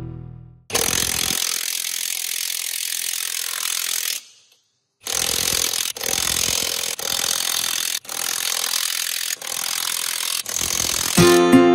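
A power tool running with a steady, harsh hiss, in several short clips cut together with sharp breaks and one brief gap.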